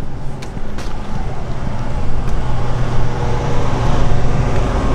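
Steady hum of road traffic with a motor-like drone, growing somewhat louder, with a few faint clicks over it.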